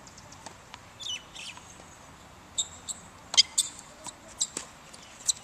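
Tennis rally on a hard court: tennis shoes squeak on the court surface in short high chirps, among sharp knocks of racket strikes and ball bounces. The loudest knock comes about three and a half seconds in.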